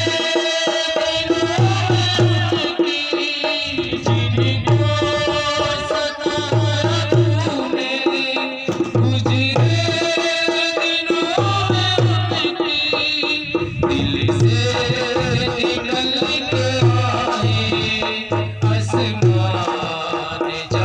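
Instrumental interlude of a Hindi devotional song: a melody over tabla-style hand drumming, with a low drum pattern repeating every two to three seconds.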